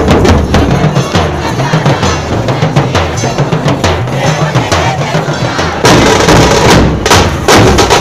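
Dhol-tasha ensemble drumming: large barrel-shaped dhol drums beaten with sticks under rapid strokes on the small tasha drums, in a dense driving rhythm that gets louder about six seconds in.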